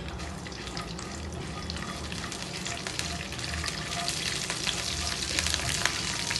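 Hot oil sizzling and crackling as mustard seeds, chana dal, urad dal and peanuts fry for a tadka (tempering) in a nonstick pan, stirred with a silicone spatula. The crackling grows louder and denser towards the end as the seeds start to splutter.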